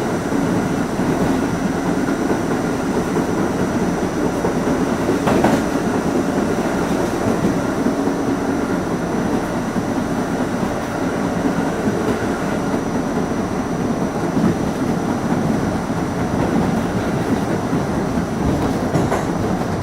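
An R68 subway car running at speed, heard from inside: a steady rumble of wheels on the rails, with occasional rail-joint clicks.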